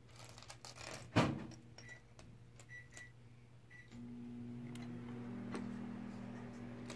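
Small plastic LEGO pieces clicking and clattering as they are handled on a wooden table, with one sharp louder clack about a second in. A steady low hum comes in a little past the middle.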